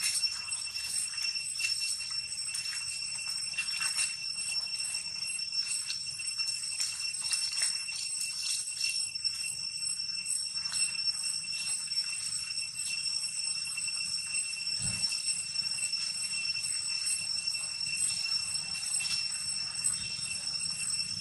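A steady high-pitched ringing drone with overtones, under irregular light ticks and rustles, with one dull thump about three-quarters of the way through.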